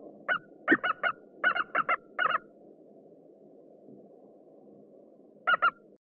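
Eagle calling: a quick run of about nine short, clipped calls over the first two and a half seconds, then a pause and two more calls near the end, over a faint steady hiss.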